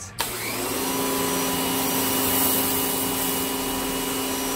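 Electric pressure washer starting up with a short rising whine, then running steadily while it blasts a jet of water from a zero-degree nozzle onto a concrete floor, with the hiss of the spray.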